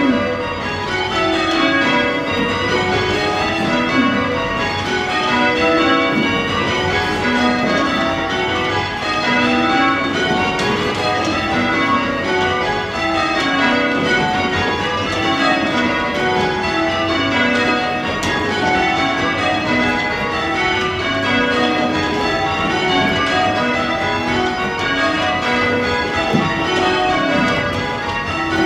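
Change ringing on a light ring of eight church bells cast by Taylor's of Loughborough in 1965, tenor in B: a steady, unbroken stream of evenly spaced bell strikes, one row of changes after another.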